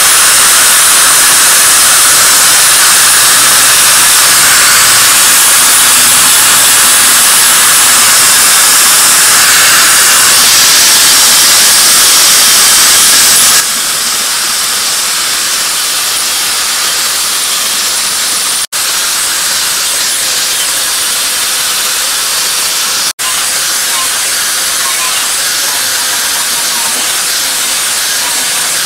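Electric angle grinder grinding the edge of a steel cleaver blade, a steady loud hiss. About 14 s in it drops to a quieter level as a red sanding disc works the edge, with two very short breaks in the sound later.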